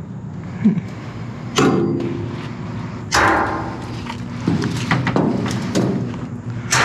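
Several loud bangs and thuds, the biggest about one and a half seconds in, about three seconds in and at the very end, over a steady low hum.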